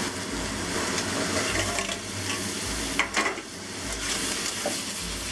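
Zucchini sizzling in oil in a hot wok while a spatula stirs and scrapes through it. There is a sharp clatter about three seconds in.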